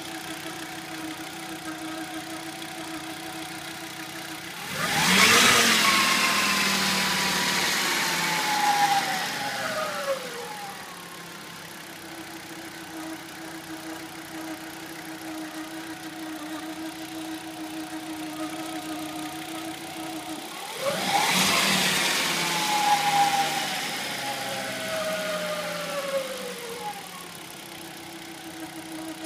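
Audi RS2's turbocharged inline five-cylinder engine idling, then revved twice, about five seconds in and again about twenty-one seconds in. Each time it is held for several seconds with a whine that falls in pitch as it settles back to idle. This is the noise that appeared after the cam pulley was changed.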